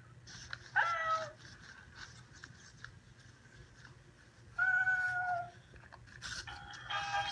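Robot cat toy giving two electronic meows through its speaker, a short one about a second in and a longer, steadier one about five seconds in. Near the end a tinny electronic tune starts.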